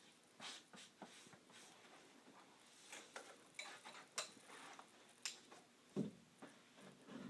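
Faint, irregular taps and clicks, with a soft thump about six seconds in, from carpet installation work in a small room.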